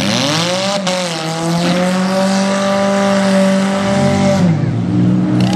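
Demolition-derby car engine revving hard: the pitch climbs in the first half-second, holds high with a loud rushing hiss over it, then drops off about four and a half seconds in. There is a short knock about a second in.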